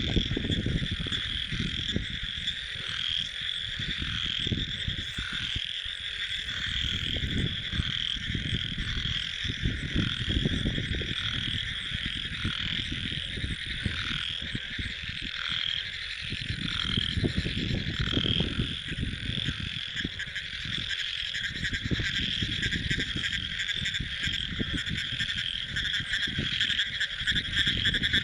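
Chorus of many frogs calling at night, a dense continuous pulsing croak. Irregular low rumbling noise runs underneath.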